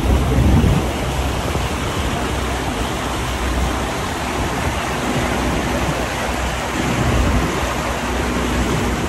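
Steady rushing noise of wind buffeting a phone microphone and water rushing past a pontoon boat under way, with a faint low motor hum beneath.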